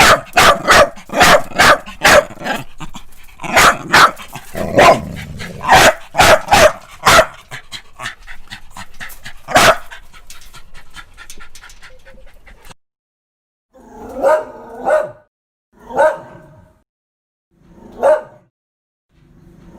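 Dogs barking: a rapid run of loud, sharp barks for about ten seconds, then a short silence. After it come single, more tonal barks, about one every two seconds.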